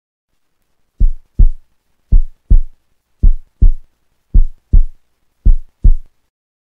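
Heartbeat sound effect: five deep double thumps, lub-dub, about one pair a second.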